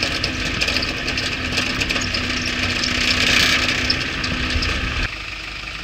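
Toyota Hilux pickup driving along a rutted dirt track, heard from its load bed: engine and tyre noise under a constant clatter and rattle of the bed and its loose gear. The sound drops suddenly to a quieter level about five seconds in.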